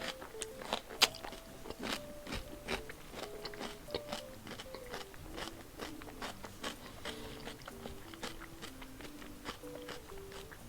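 Close-up mouth sounds of a person chewing and biting food (raw salmon and shrimp), a run of irregular wet clicks and crunches, the loudest about one and two seconds in. A soft melody plays underneath.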